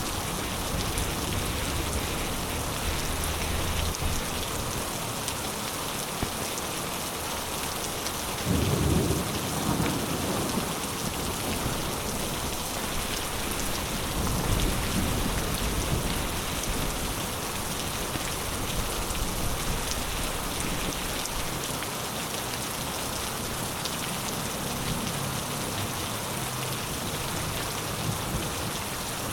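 Heavy rain pouring steadily, with thunder rumbling low twice: about nine seconds in, and again around fifteen seconds.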